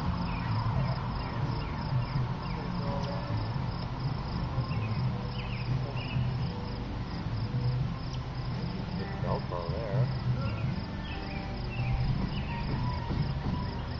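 Insects, crickets by their sound, trilling steadily in a high, even pulse, over a low steady rumble.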